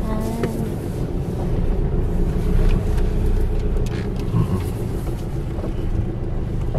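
Steady engine and road rumble heard from inside the cabin of a slowly moving vehicle.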